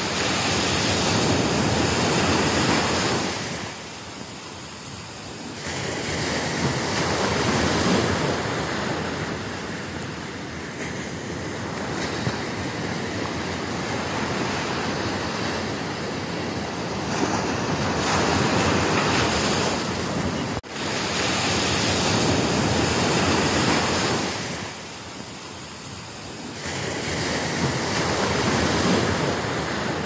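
Ocean surf: waves breaking and washing in, the rush swelling and fading every several seconds, with a brief cut in the sound about two-thirds of the way through.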